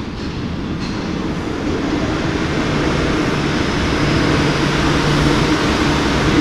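Madrid Metro Serie 8400 train pulling into an underground station: the rumble of its wheels on the rails grows steadily louder as the cars run past, with a steady low hum underneath.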